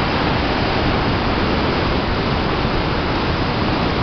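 Whitewater rapids of the River Swat rushing over boulders: a loud, steady rush of churning water.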